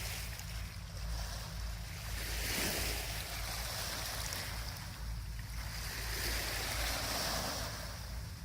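Small sea waves breaking and washing up the beach, the surf swelling and fading about three times, over a steady low rumble.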